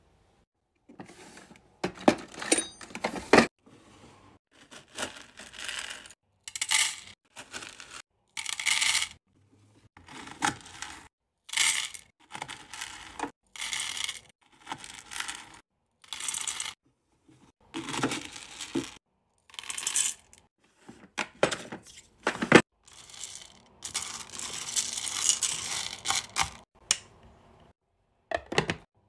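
Hard wax beads poured into the empty stainless-steel pot of a Mylee wax warmer, rattling and clinking against the metal in many short bursts, with a longer steady pour near the end.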